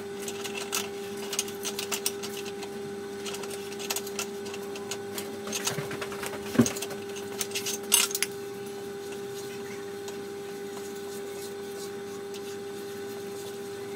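Metal clicks and knocks from a hand die stock and its steel extension bars being worked in a bench vise while threading a steel shaft, with a louder knock about six and a half seconds in and a sharp clink at about eight seconds, after which the clicking stops. A steady hum sits underneath.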